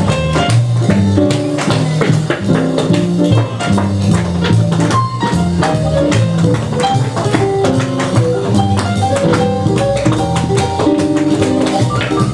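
Tap shoes striking a wooden stage in quick, sharp rhythmic taps over a light piano tune.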